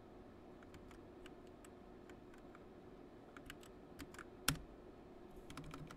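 Faint, scattered keystrokes on a computer keyboard, used to step through a text-mode menu, with one louder key press about four and a half seconds in.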